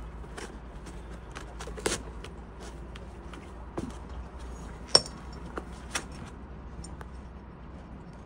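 Metal parts of a Cison V8 engine model kit being handled and lifted out of foam packing: scattered light clicks and taps of metal on metal, the sharpest about five seconds in, over a low steady hum.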